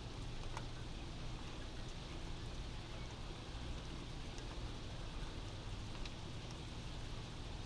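Steady rain heard from indoors, with a few faint scattered drip ticks and a low, even rumble underneath.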